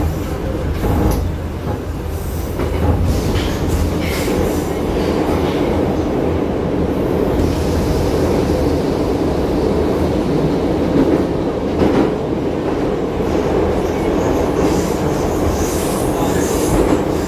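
Metro train heard from inside the car while running: a steady rumble of wheels and running gear on the rails, with a few sharp clacks over rail joints. The train runs from the open air into a tunnel partway through.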